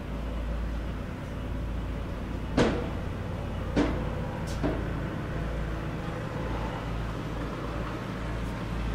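Steady low outdoor background rumble, with three sharp knocks in quick succession near the middle; the first two are the loudest.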